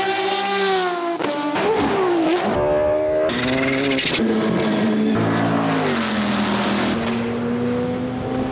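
Engine sounds of several different race cars cut together in quick succession, the engine note changing abruptly every second or so, with revs falling and rising between cuts.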